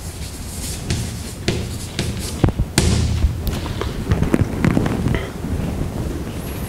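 Irregular knocks, thuds and clatter in a lecture hall, several a second, with footsteps and handled paper.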